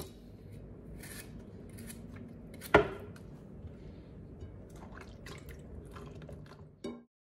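Kitchen knife scraping and tapping at an artichoke over a cutting board: a scatter of small clicks and scrapes, with one sharp knock about three seconds in and another thud near the end, over a low steady background hum.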